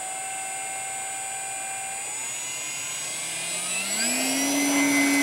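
Electric motor and propeller of a Parkzone F4U-1A Corsair RC plane whining steadily, then rising in pitch about two seconds in and again more sharply near the end as the throttle comes up, getting louder.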